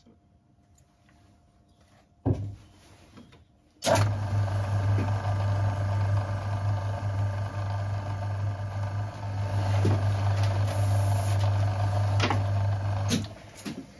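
Myford metal-working lathe starting up about four seconds in and running steadily with a low electric hum and mechanical whine, turning down a 2-inch steel slug, then stopping about a second before the end. A single knock comes about two seconds in, before it starts.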